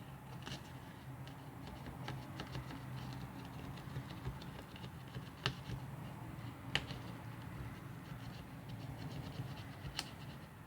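Thin plastic pry card scratching and scraping as it is worked under a phone battery to cut through the battery's adhesive, with a few sharp ticks along the way.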